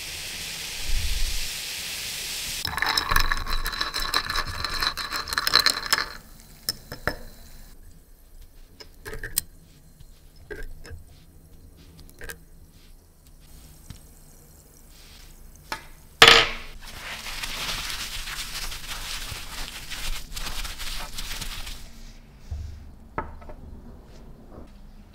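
Cleaning solution fizzing as it foams in a glass jar, then light clinks and taps of small metal lighter parts and a glass jar being handled and set down on a wooden table. There is one sharp knock about sixteen seconds in, followed by a few seconds of steady hiss.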